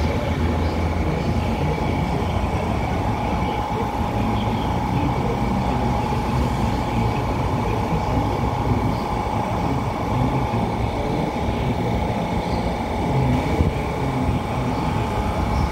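SuperVia Série 500 electric multiple unit standing at a platform with its onboard equipment running: a steady low hum with a constant high whine.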